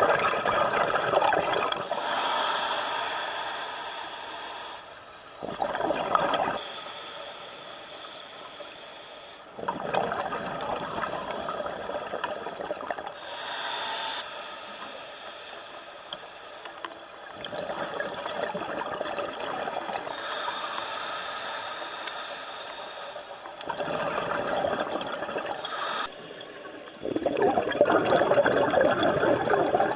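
Scuba regulator breathing underwater: a hissing inhale through the regulator alternates with a bubbling rush of exhaled bubbles, about five slow breaths in all.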